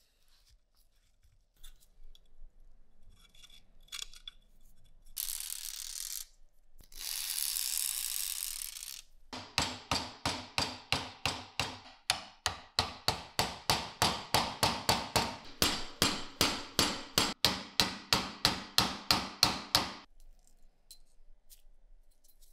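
Two short bursts of hissing, then rhythmic back-and-forth scraping on the rust-covered steel of a Carcano rifle bolt, about four strokes a second for some ten seconds before stopping abruptly.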